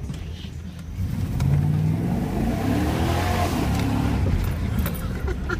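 1997 Chevrolet Silverado Z71's 350 Vortec V8 pulling in four-low on a muddy trail, revving up about a second in, rising in pitch for a couple of seconds and then holding, over a broad hiss of tyres churning through wet mud.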